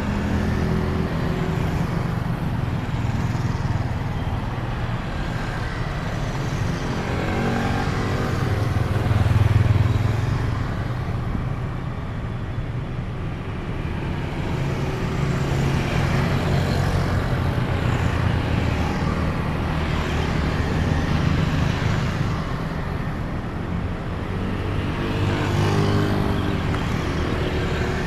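Road traffic going by continuously: cars and motorcycles passing one after another, each engine swelling and fading. The loudest pass comes about a third of the way in.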